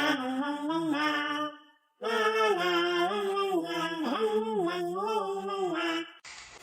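Wordless, unaccompanied singing in long, gliding notes. It breaks off for a moment about a second and a half in and stops about six seconds in.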